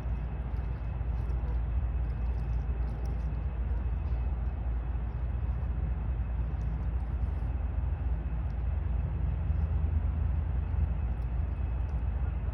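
Steady low rumble with a hiss above it and no distinct events: outdoor background noise.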